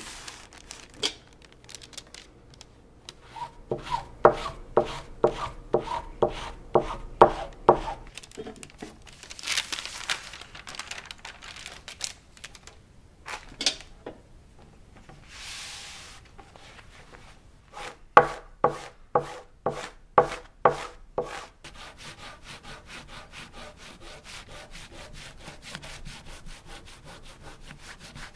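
A pot of boiling water slid back and forth over parchment paper on waxed cotton pants, rasping strokes about two a second, melting the rubbed-on wax into the cloth. In the last seconds a paraffin-and-beeswax puck is scrubbed quickly and evenly over the cotton fabric.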